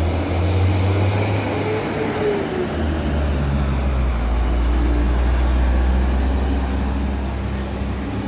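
Large diesel bus engine running with a deep, steady drone. Its pitch drops and settles lower about three seconds in.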